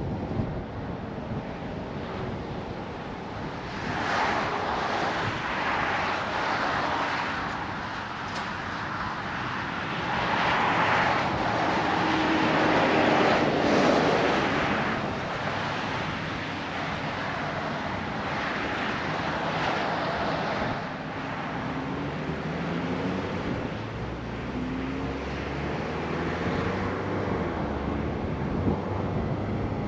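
Car driving, with steady road and wind noise and louder swells of rushing sound. In the second half the engine note rises as the car picks up speed.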